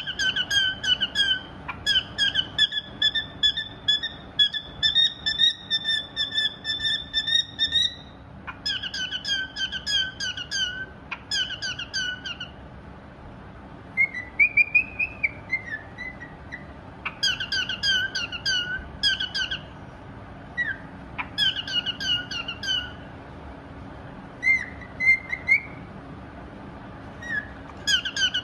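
Pied cockatiel singing: runs of quick, repeated whistled notes broken by short pauses, with a longer whistle that rises and falls about halfway through.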